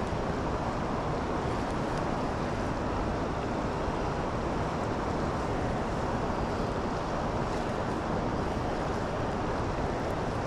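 Steady rush of a swift river current flowing over and past rocks, an even noise that does not change.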